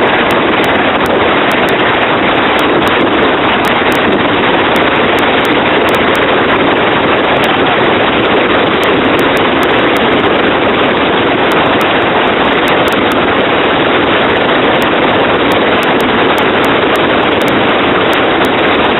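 Helicopter's loud, steady engine and rotor noise, a dense rushing din with no distinct beat.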